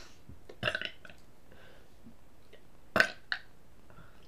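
A person's short burps: one about a second in, and a sharper, louder one about three seconds in.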